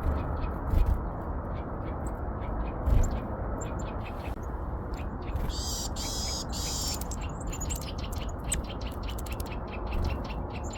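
Small wild birds chirping, with many short, quick ticks and a denser chattering burst about five and a half seconds in. Under them is a steady low outdoor rumble, with two low thumps about one and three seconds in.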